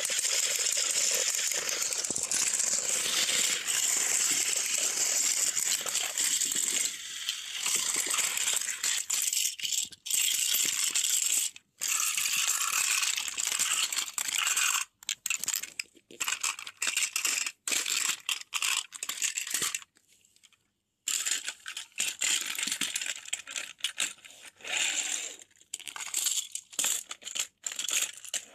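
Plastic toy trains rattling and clattering on plastic track as they run and are handled. The rattle is steady for the first several seconds, then breaks into short bursts and clicks with brief silent gaps.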